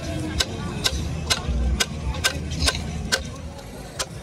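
Steel claw hammer striking a nail, driving it through a wooden stick into a round slab of fresh-cut wood, at a steady rate of about two blows a second over a low rumble.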